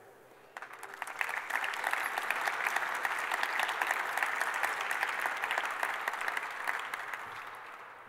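Audience applauding: the clapping starts about half a second in, swells, and dies away near the end.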